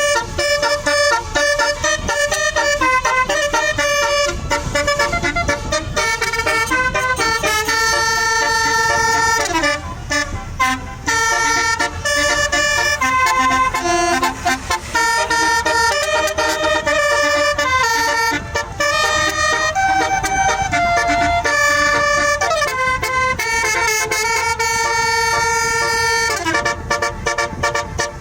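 Tour bus's 'telolet basuri' musical horn playing a song: held horn notes stepping from one to the next as a melody, with a few notes sliding down in pitch.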